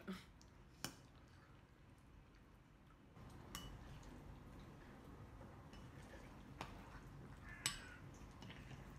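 Metal spoon stirring yogurt in a bowl: mostly near silence, broken by about four sharp clicks of the spoon against the bowl.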